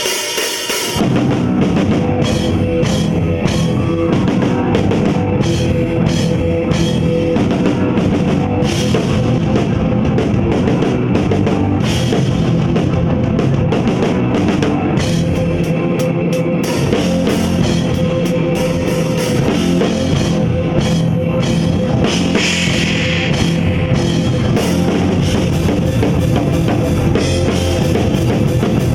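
Full drum kit played in a continuous rock beat, with cymbals ringing over the kick and snare. This is a drum sound check on a new kit, and a steady held tone runs underneath.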